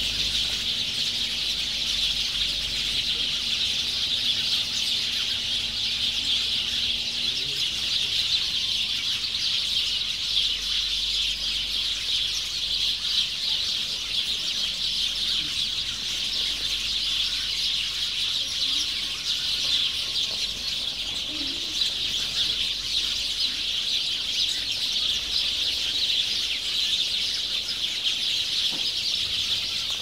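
A dense, unbroken chorus of many birds chirping and calling, with no pauses.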